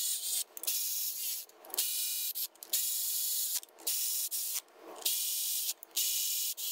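Cordless electric ratchet whirring in about eight short runs of half a second to a second each, with brief pauses between, driving in and snugging up motorcycle stator cover bolts.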